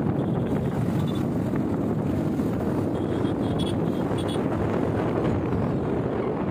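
Motorcycle on the move: steady engine and road noise mixed with wind rushing over the microphone.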